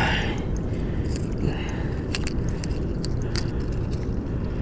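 Fishing reel and tackle ticking and rattling while a hooked redfish is fought on rod and reel from a kayak, over a steady low rumble.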